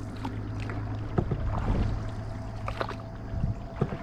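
Canoe being paddled: paddle strokes and drips in the water, with scattered small knocks, the loudest about a second in. A faint steady low hum runs under most of it and fades out near the end.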